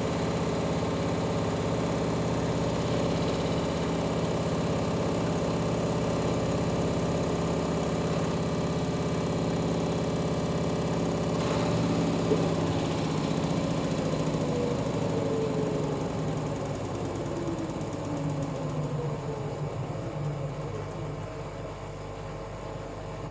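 LG washing machine running with a loud, steady hum. About halfway through there is a click, then the pitch falls and the sound eases as the drum slows down. The owner calls the noise strange and doubts that it comes from the bearings, since these have been replaced and the spider arm is sound.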